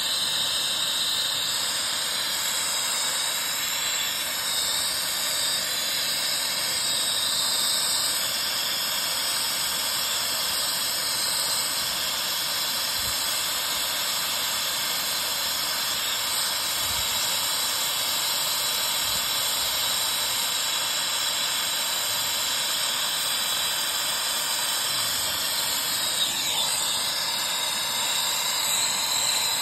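Brazing torch flame hissing steadily, played on a copper line-set joint at an AC condenser's brass service valve while filler rod is fed in.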